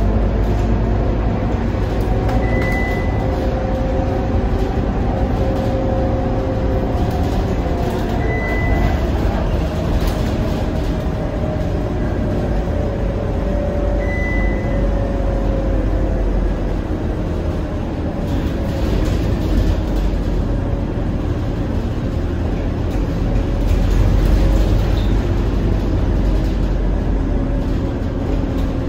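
Scania K230UB city bus under way, its diesel engine and drivetrain giving a loud, steady drone whose pitch slowly rises and falls with road speed. A short high beep sounds three times, about six seconds apart.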